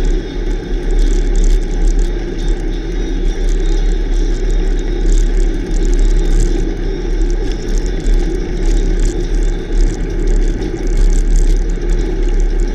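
Wind buffeting a bike-mounted camera's microphone over the steady rumble and rattle of a bicycle's tyres rolling on a rough road shoulder.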